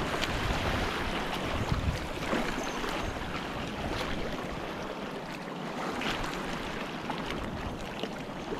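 Choppy sea slapping and splashing against a kayak's hull, with short splashes scattered throughout over a steady wash of water.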